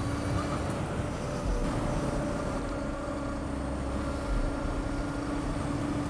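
Zero SR/F electric motorcycle cruising at a steady speed: its motor gives a steady whine over wind and road rumble.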